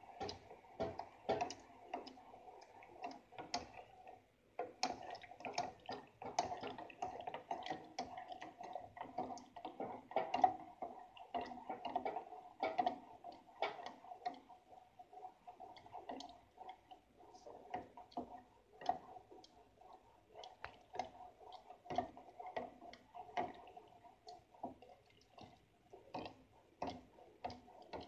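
A stirring utensil clicking and scraping irregularly against the sides and bottom of an aluminium saucepan of hot chocolate, several knocks a second, over a faint steady hum.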